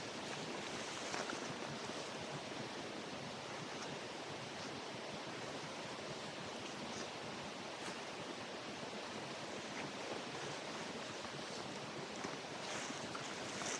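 Steady rush of running water from a stream, with a few faint rustles and clicks as a backpack is unpacked and a plastic bag is handled.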